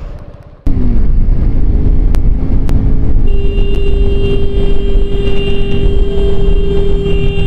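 Motorcycle riding at speed: engine running under loud wind rush on the helmet-camera microphone, starting abruptly about a second in. From about three seconds in a steady pitched tone holds on over the rumble.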